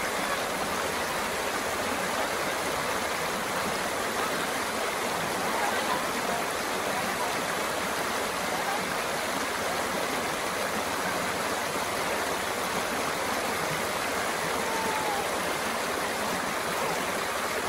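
Shallow, rocky river rushing steadily through white-water riffles.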